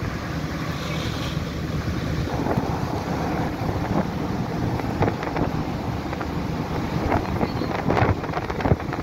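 Gale-force wind buffeting the microphone on a ferry's open deck, over a steady low drone. Sharper gusts hit the microphone now and then, more often in the second half.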